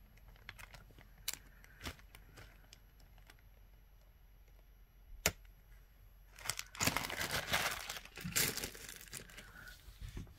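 Plastic zip bag holding a spool of 20-gauge silver-plated craft wire crinkling as it is handled, for about three seconds in the second half. Before that come scattered light clicks and one sharp click of wire and tools on the work mat.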